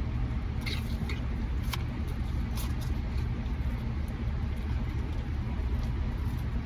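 Steady low rumble of a car heard from inside the cabin, with a few brief crinkles or clicks in the first few seconds.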